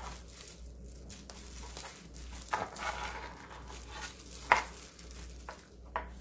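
Kitchen knife cutting through stacked fish cake sheets on a cutting board, with a few sharp knocks of the blade on the board, the loudest about four and a half seconds in, and handling rustle in between.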